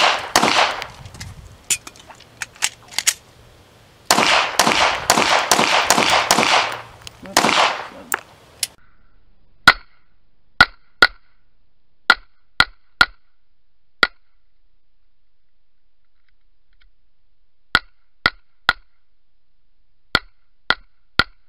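Semi-automatic pistol fired rapidly at several targets: quick runs of shots that blur into their echoes for the first eight seconds or so, then short, sharp single shots in groups of two or three with pauses between them.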